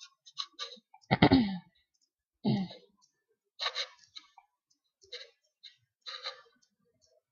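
Mobile phone buttons clicking as keys are pressed to move through the menus, scattered single clicks about every half second to second. There are two louder short sounds that drop in pitch, about a second in and about two and a half seconds in.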